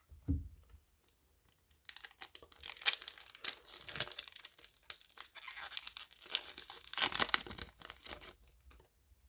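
A Yu-Gi-Oh booster pack's foil wrapper being torn open and crinkled: a ragged tearing and crackling that starts about two seconds in and lasts about six seconds.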